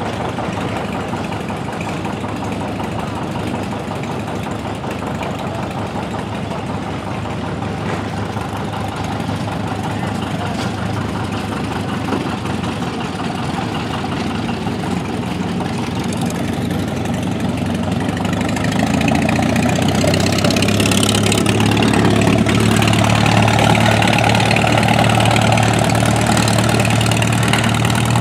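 Antique tractor engine idling steadily, growing louder about two-thirds of the way in.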